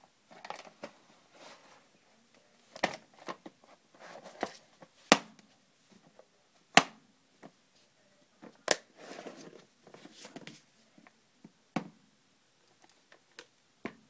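Hard plastic toy playset case (Matchbox Auto Center Pop Up Adventure Set) being handled while closed: about five sharp plastic clicks and snaps, spread out, with light scraping and rattling between them.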